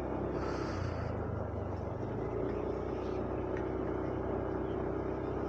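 Yamaha Aerox 155 scooter's single-cylinder engine running steadily under way, with road and wind noise; a steady engine tone settles in about two seconds in.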